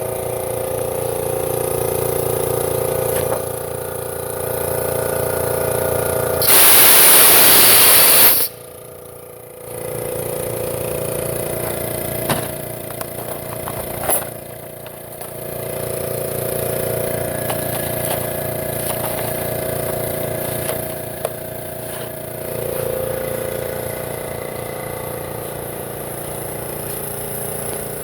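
Electric air compressor (Makita MAC2400) running, its pump motor giving a steady hum with a fast regular pulse. About six seconds in comes a loud two-second hiss of released air, after which the level drops briefly before the running sound returns.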